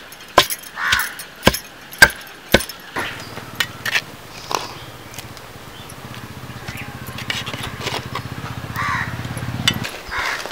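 Wooden pestle pounding dried red chillies in a stone mortar: five sharp thuds about twice a second, stopping about three seconds in. After that a low steady hum runs with a few light clinks, and crows caw now and then.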